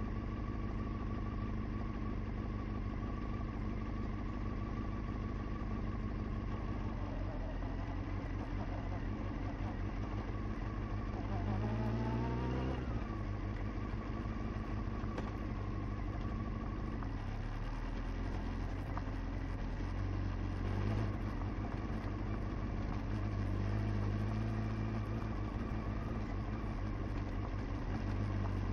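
Honda CBR motorcycle engine running steadily under way, with one short rising rev about twelve seconds in.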